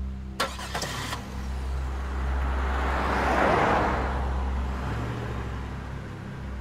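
A van driving past close by, its tyre and engine noise swelling to a peak about three and a half seconds in and then fading, over a steady low hum. A few sharp clicks in the first second.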